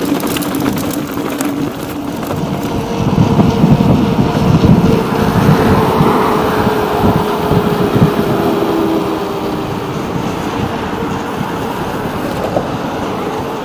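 Road traffic with a vehicle passing: the noise swells about three seconds in and eases again after about eight seconds, over a steady low rumble.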